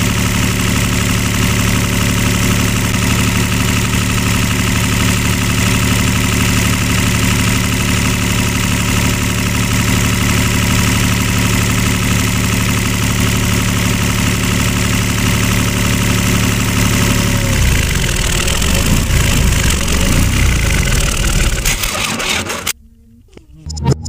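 Tractor engine running at a steady idle hum. About 17 seconds in the steady hum gives way to a rougher, uneven noise, and the sound cuts off abruptly a second before the end.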